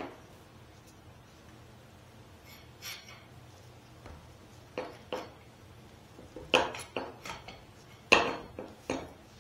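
Pipe clamps being fitted and adjusted: scattered metal clicks and clanks as the clamp jaws slide and catch on the steel pipe. The strongest come about two-thirds of the way through and near the end.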